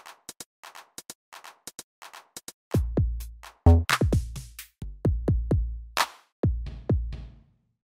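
Electronic drum-machine beat: sparse, light clicking percussion, then about two and a half seconds in, heavy deep kick drums that drop in pitch come in on a steady pulse.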